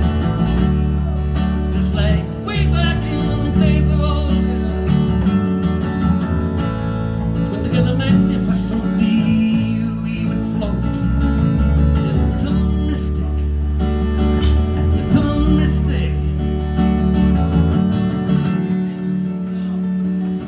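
Live acoustic guitar strummed along with an electric bass guitar, a duo playing a song.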